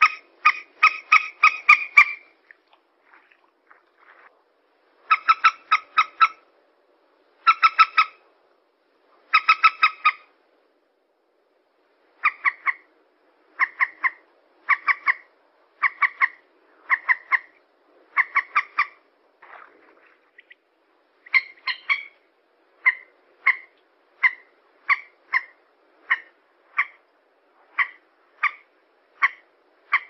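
Common moorhen calls played as a bird-lure recording. Short, sharp pitched notes come in quick runs of five or six for the first ten seconds, then single notes repeat about once a second.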